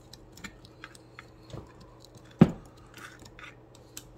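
Light, scattered clicks and scrapes of a metal pick prying at the oiler plate on a Husqvarna 394XP chainsaw crankcase, with one sharper click about two and a half seconds in.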